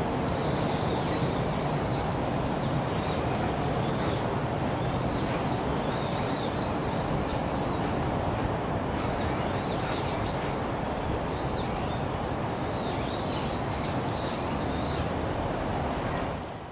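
Steady outdoor background rumble with small birds chirping now and then: short high calls in several brief runs.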